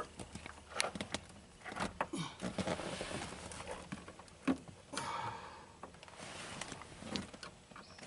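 Hands working a car seat belt and its retractor: scattered light clicks and knocks with brief rustling, a little louder about five seconds in.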